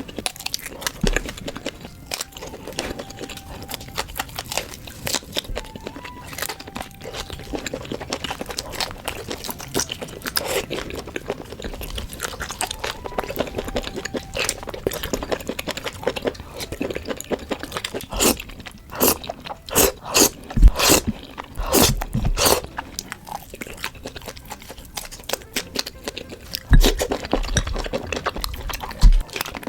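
Close-miked eating of squid and instant noodles: chewing and biting with crunchy, crackly clicks throughout, loudest in bursts about two-thirds of the way through and near the end.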